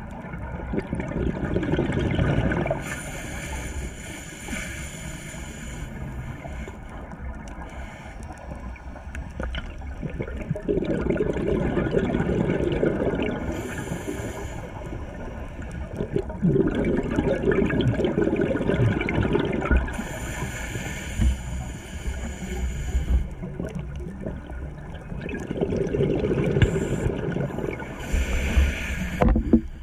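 Underwater scuba breathing through a regulator: a few slow bursts of exhaled bubbles rushing and gurgling, with hissing inhales through the regulator in between.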